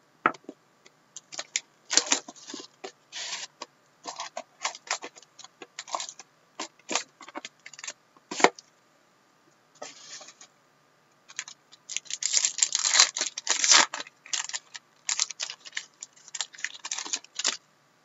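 Plastic shrink wrap and a sealed trading-card pack being handled and torn open by hand: irregular crinkling and crackling, densest and loudest in a burst about twelve to fourteen seconds in.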